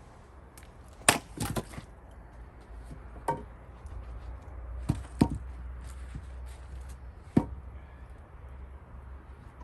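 Gränsfors Bruk axe splitting cherry-wood rounds: a series of about six sharp chops, the loudest about a second in followed by a brief crackle of the wood giving way.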